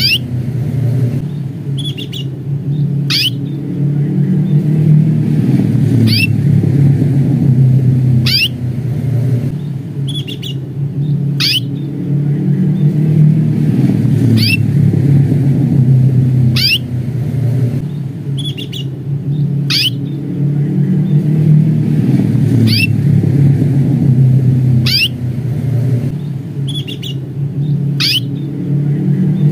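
Domestic canary giving its sharp 'cuit' call, a single quick chirp about every two to three seconds, some with a softer lower note just before. A steady low rumble, louder than the calls, runs underneath.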